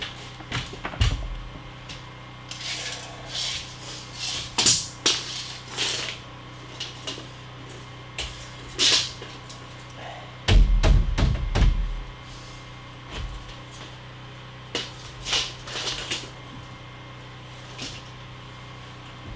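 Irregular wooden knocks and clatters of framing work on a stud wall, with a heavier cluster of low thumps about ten and a half seconds in, over a steady low hum.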